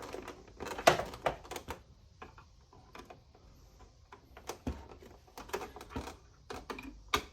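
Irregular light clicks and taps of a small screwdriver and screws against a plastic toy casing being taken apart.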